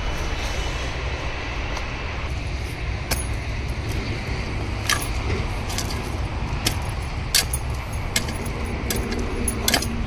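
Scattered sharp clinks and knocks, about half a dozen spread unevenly, over a steady low rumble.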